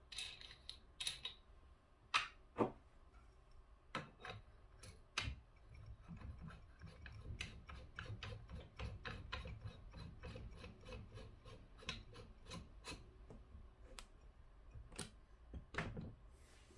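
An aluminium air-rifle silencer, a DonnyFL Ronin .22, being handled and screwed by hand onto the half-inch UNF threaded muzzle of an FX Impact M3 Compact. A few separate faint knocks as it is picked up and offered to the barrel, then several seconds of small rhythmic clicks, about three a second, with metal rubbing as the threads turn, and two more knocks near the end.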